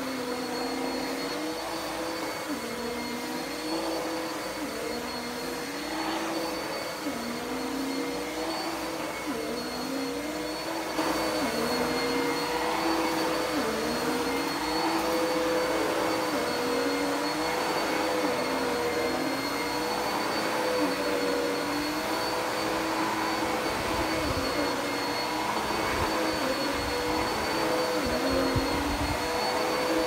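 Dirt Devil PowerMax Pet bagless upright vacuum running over carpet: a steady motor whine with a lower hum that slides up and drops back over and over as it is pushed back and forth. It gets louder about a third of the way in.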